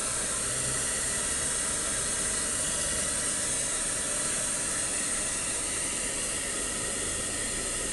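Handheld hair dryer blowing steadily on a puppy's fur, a continuous even hiss of rushing air.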